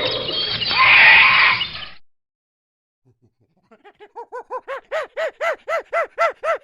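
Monkey calls: a dense chattering din that cuts off about two seconds in, then after a short pause a run of rhythmic hoots, about four a second, growing louder.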